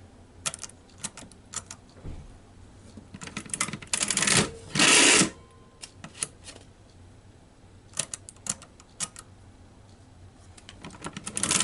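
Victor Champion mechanical adding machine being operated: sharp clicks of number keys being pressed, and twice a longer, louder clatter of the hand-pulled mechanism cycling, about four seconds in and again near the end.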